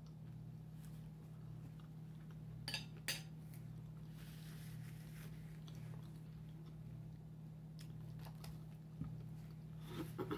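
Quiet chewing of food, with a few sharp clicks of a metal fork against a ceramic plate, over a steady low hum.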